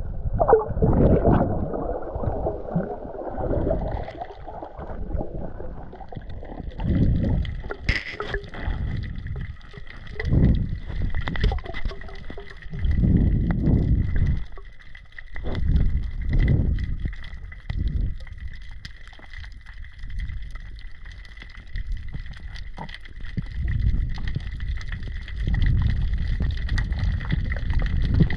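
Seawater sloshing and gurgling in surges that swell and fade every two to three seconds.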